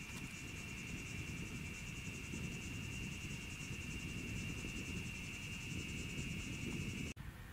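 Steady, high-pitched insect chorus with a fast pulsing shimmer above it and a low rumble underneath; it cuts off suddenly about seven seconds in.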